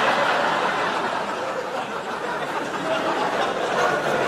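A large theatre audience laughing, a wave of crowd laughter that holds steady and eases slightly toward the end.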